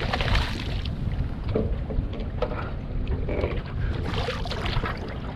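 Several short splashes from a hooked speckled trout thrashing at the water's surface beside the boat, over a steady low rumble of wind on the microphone.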